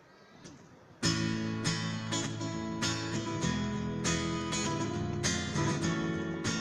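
Acoustic guitar strummed in a steady rhythm, starting suddenly about a second in after near silence: the instrumental opening of a song.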